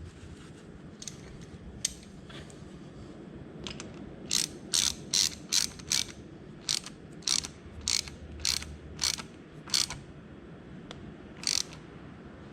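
A ratchet wrench clicking in a run of about a dozen short bursts roughly half a second apart, with one more a little later, as a fastener on the motorcycle is worked with back-and-forth strokes.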